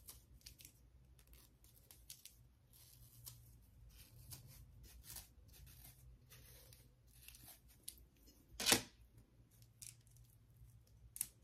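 Faint, intermittent scratching and rustling of a rat-tail comb and fingertips pressing a wig's lace frontal down against the hairline, with one louder brief rustle about three quarters of the way through.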